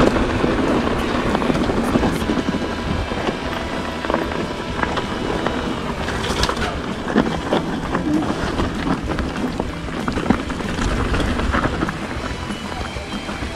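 Mountain bike riding over a rocky trail: a steady rushing noise with constant irregular rattles and knocks from the bike and tyres on stones.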